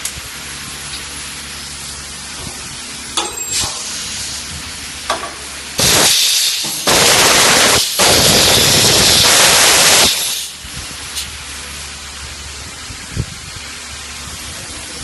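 Compressed air hissing loudly in three abrupt bursts lasting about four seconds in all, from roughly six to ten seconds in, over a steady background noise.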